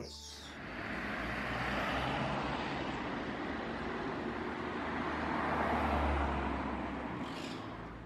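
Outdoor city ambience: steady road-traffic noise that swells twice as vehicles pass, then fades away near the end.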